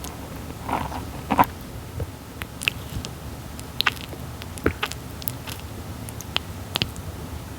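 Red-footed tortoise biting into and chewing papaya: a dozen or so short, irregular wet clicks and crunches, the loudest about a second and a half in.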